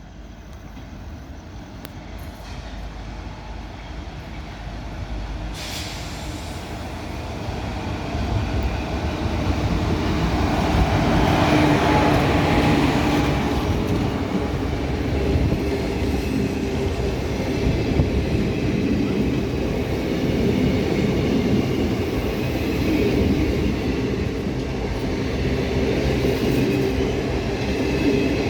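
Indian Railways express passenger train approaching and passing through without stopping. The rumble of wheels on rails grows louder over the first ten seconds, then holds, with its horn sounding.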